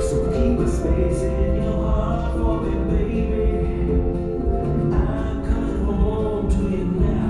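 Music with singing: sustained, choir-like chords held at a steady loudness.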